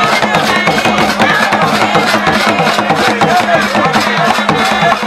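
Gule Wamkulu dance music: Chewa drums beating a fast, steady rhythm with voices singing over it.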